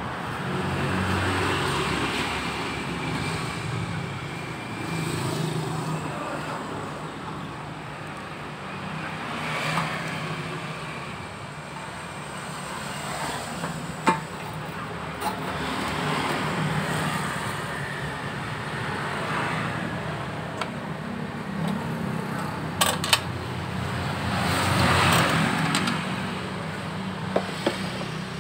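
Motor-vehicle engines running nearby, a low rumble that swells and fades every few seconds as vehicles pass, with a few sharp clicks of parts being handled while a fuel pump is fitted into the tank.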